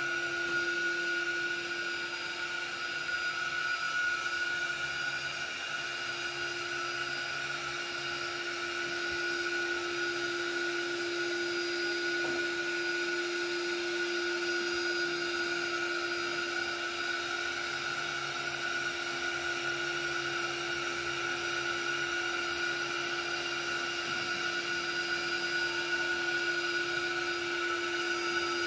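Ecovacs Winbot Neo window-cleaning robot running on glass: the steady whine of its suction fan, holding a constant low tone and a higher-pitched one over an even whirring hiss.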